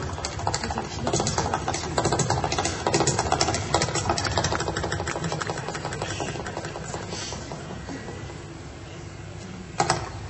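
Metal-tipped tap shoes striking a stage floor in a fast tap-dance solo: a rapid stream of taps that thins and softens after about six seconds, then a few loud sharp strikes near the end.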